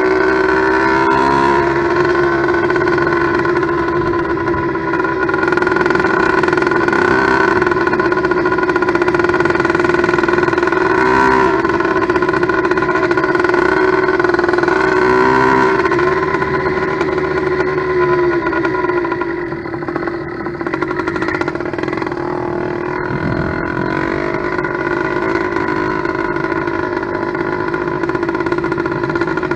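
Two-stroke motorized bicycle engine, a steel-sleeve 100cc-class kit on an 80cc bottom end, running steadily on its first start. Its speed sags a little about two-thirds of the way through, then it runs on slightly lower and quieter.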